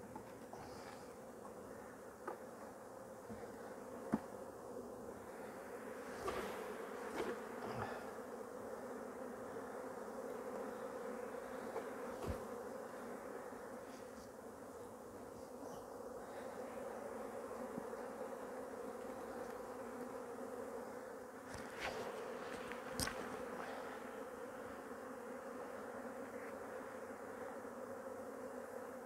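Steady buzzing hum of a large mass of honey bees shaken out of their hive onto a sheet for an artificial swarm. A few sharp knocks of wooden hive boxes and frames being handled cut in now and then.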